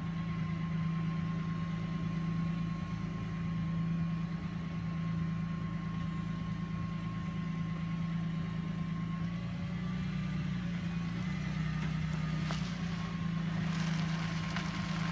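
A Ford Transit van's engine running with a steady drone. Its note shifts slightly about ten seconds in, and more road or wind hiss comes in near the end.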